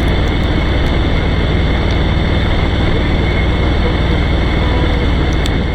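Harley-Davidson Road Glide's V-twin engine running steadily on the move, under heavy wind and road noise on the microphone.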